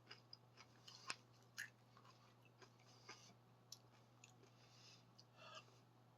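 Faint crunching of Ruffles Double Crunch ridged potato chips being chewed, with irregular crisp crunches about a second apart over a low steady hum.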